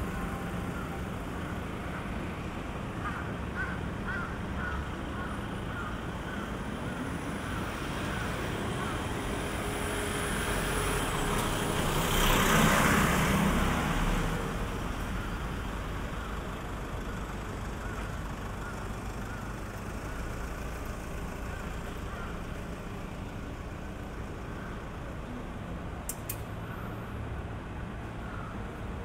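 Steady city street traffic, with a motor vehicle passing close by: its noise swells to a peak about twelve seconds in, then fades back into the background rumble.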